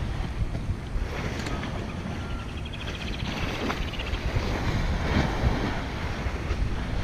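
Wind buffeting the microphone with a steady low rumble, over small waves lapping at the river shore. A brief run of rapid ticking comes about three seconds in.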